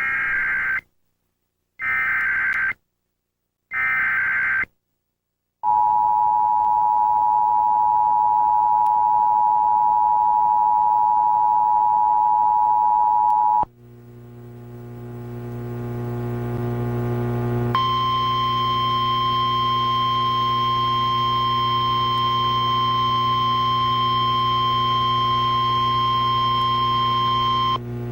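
Emergency Alert System activation. It opens with three short bursts of SAME header data, each about a second long. The two-tone EAS attention signal follows, held for about eight seconds. After it stops, a low electrical hum from the relayed NOAA Weather Radio feed swells up, and about four seconds later the steady 1050 Hz Weather Radio alert tone sounds over the hum for about ten seconds.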